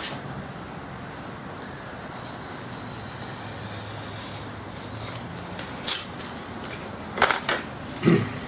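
Hobby knife cutting through a foam wing sheet with a faint scratchy hiss, then several sharp clicks and knocks in the last few seconds as the cut-out section is worked free and handled.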